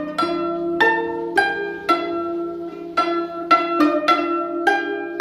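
Bridged zither playing a slow melody, a plucked note about twice a second, each ringing on. A faint steady low tone lies underneath.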